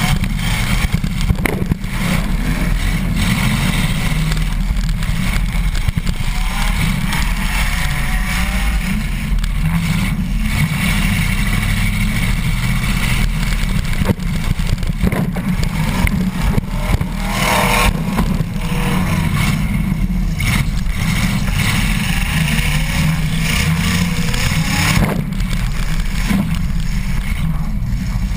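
Demolition derby car's engine running loud and rough, heard from inside the gutted cabin, with a few sharp knocks and clunks scattered through it.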